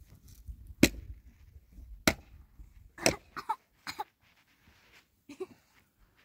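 A series of sharp knocks or impacts at irregular intervals, the loudest about a second and two seconds in, with several more around three to four seconds in.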